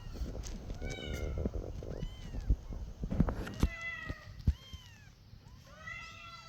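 Newborn kittens mewing: many short, high-pitched cries that rise and fall, coming one after another, over rustling and a few knocks.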